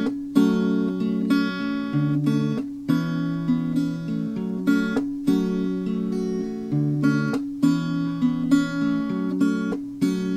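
Acoustic guitar with a capo, fingerpicked in a simple repeating three-chord pattern, roughly C, D and E minor with added ninths. Each chord has a plucked bass note and the upper strings picked together. Brief stops fall about every two and a half seconds as the chords change.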